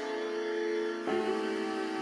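Soft instrumental background music: held chords on a keyboard-like instrument, changing chord about a second in.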